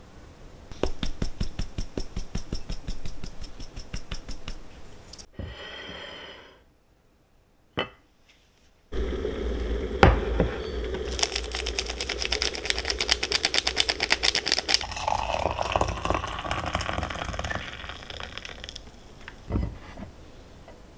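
Close-up kitchen tableware handling sounds in several short takes: a run of rapid clicking near the start, a brief pause, then clinks and knocks of a ceramic mug and plates on a counter, with a sharp knock about ten seconds in.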